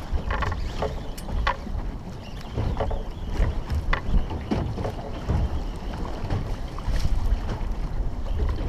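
Wind buffeting the microphone and sea water slapping around a small open boat, with a few short knocks and splashes.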